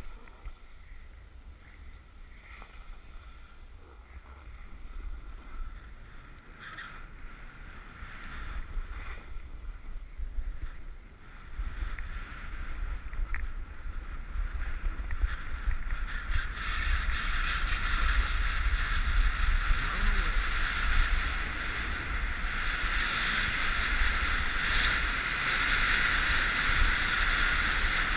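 Snowboard sliding and scraping over snow, with wind buffeting the GoPro's microphone. A few knocks come in the first part as the board crosses moguls. The hiss of the board on snow then grows louder and steadier on smoother groomed snow.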